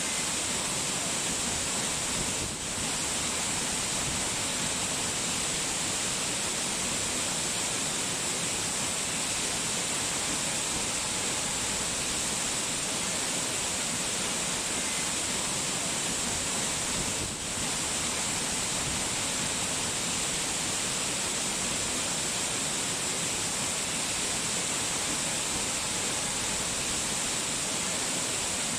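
Steady rushing water noise with no music or voice, dipping briefly twice: once a few seconds in and once a little past halfway.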